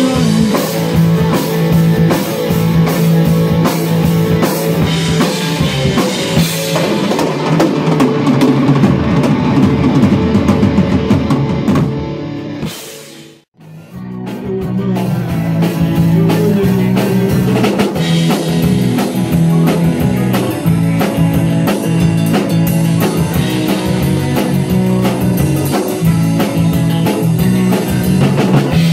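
Live rock band playing loud, with drum kit, electric guitar, bass and keyboard. About halfway through the music fades to a brief silence and comes back in with the band playing again.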